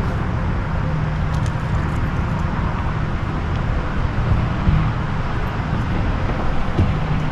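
Steady road traffic from Briley Parkway across the river: a continuous rushing hiss over a low hum, with no single event standing out.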